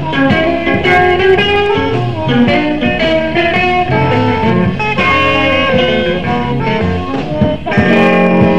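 Electric blues band playing live: a run of quickly changing electric guitar notes over bass and drums.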